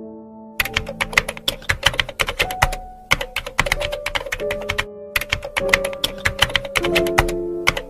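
Typing sound effect: rapid computer-keyboard key clicks in quick runs with a couple of brief pauses, starting about half a second in, over background music with held notes.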